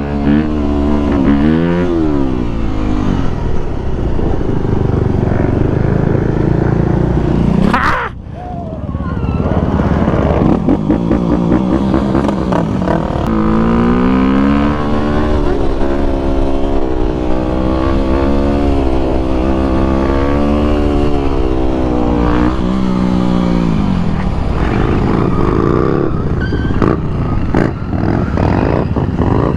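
Yamaha WR250 dirt bike's single-cylinder four-stroke engine being ridden, its pitch rising and falling with throttle and gear changes. The sound drops briefly about eight seconds in, then picks up again.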